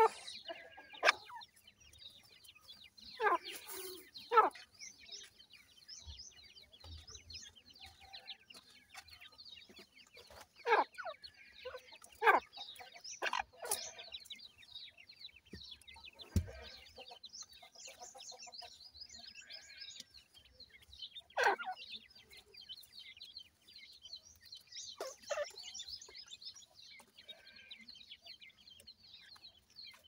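Grey francolin chicks cheeping in a constant high-pitched chatter, broken by louder short clucking calls from time to time.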